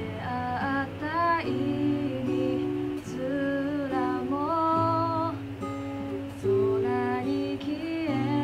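Steel-string acoustic guitar playing a song: sustained chords with a melody line gliding above them.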